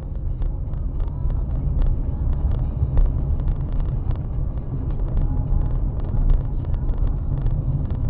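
A car driving, recorded by a dashcam in the cabin: a steady low rumble of road and engine noise, with frequent light, irregular clicks and knocks over it.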